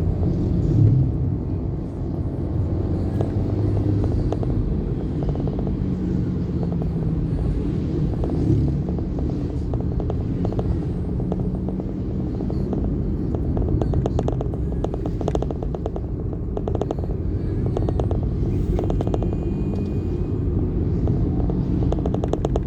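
Vehicle driving on the road: a steady low engine and road rumble. In the second half it carries a run of rapid small clicks and rattles.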